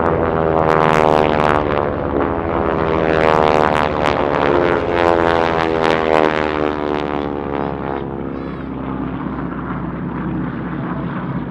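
North American Harvard trainers' Pratt & Whitney R-1340 radial engines and propellers in an aerobatic display: a loud, steady engine-and-propeller drone whose pitch slowly falls as the aircraft pass, easing off somewhat in the last few seconds.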